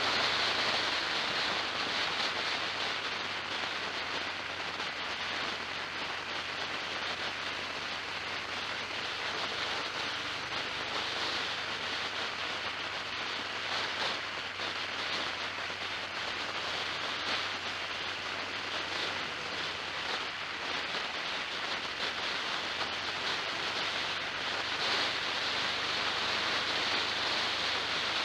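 Steady rushing wind and road noise from a vehicle travelling along the road, with a faint low engine hum underneath.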